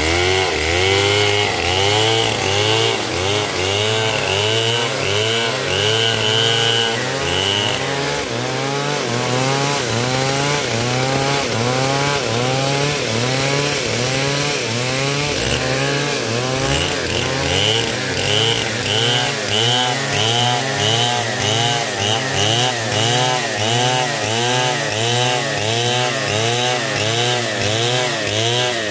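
Stihl MS 070 chainsaw, a large 105 cc two-stroke, running under load while cutting through wood. Its engine pitch rises and falls in a quick, steady rhythm throughout.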